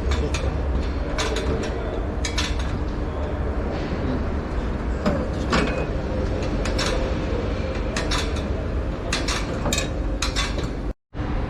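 Scattered sharp metallic clicks and knocks of hand tools working on a vehicle, over a steady low hum.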